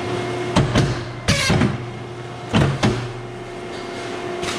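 Guillotine paper cutter running with a steady machine hum; knocks about half a second in, then a short loud crunching swish as the blade cuts through the stack of paper, and more knocks a little later.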